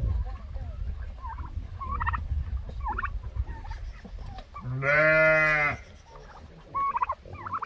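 Domestic turkeys giving short, high yelping calls about once a second over a low rumble. About five seconds in comes one loud bleat from a sheep or goat, lasting about a second.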